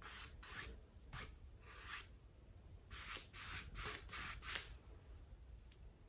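A paintbrush sweeping back and forth across a stretched canvas with acrylic paint: a string of about ten short, soft swishes, coming quickest between about three and four and a half seconds in, then dying away near the end.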